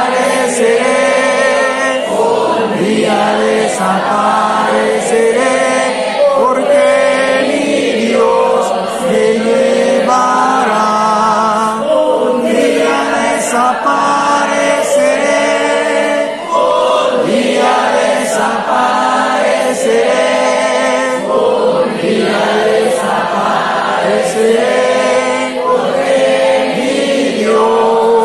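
A congregation singing a hymn together, many voices holding long sustained notes.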